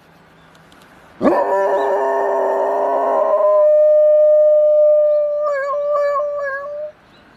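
A golden retriever howling. The howl starts suddenly about a second in with a rising sweep and is fuller at first, then holds one long steady note that wavers near the end and cuts off about seven seconds in.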